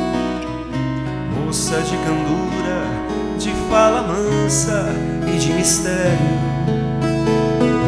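Viola caipira, the Brazilian ten-string folk guitar, playing an instrumental passage: a plucked melody with sliding notes over ringing chords, with a few bright strums.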